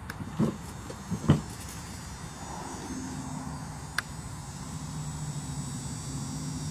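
A few low thumps in the first second and a half, then a steady low hum that sets in about three seconds in, with one sharp click a second later.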